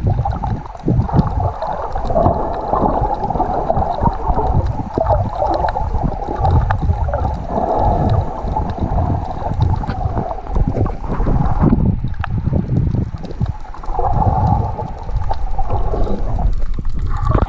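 Muffled underwater noise heard through an action camera's waterproof housing as a snorkeler swims: water rushing and sloshing against the camera, with scattered small clicks.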